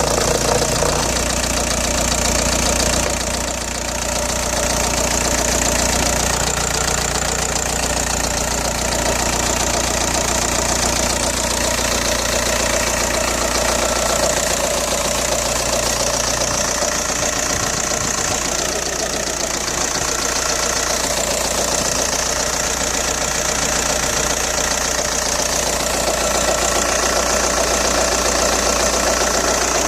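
Audi 1.9 TDI (AWX) four-cylinder pumpe-düse diesel idling steadily with a rapid, continuous rattle. The rattle is one the owner links to having resealed the unit injectors with new O-rings and copper washers.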